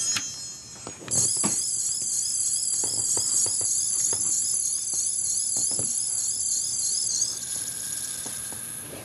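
Ben 10 Omnitrix toy watch playing a high, rapidly warbling electronic sound effect through its small speaker, starting about a second in and fading away after about seven seconds, with a few faint clicks of it being handled.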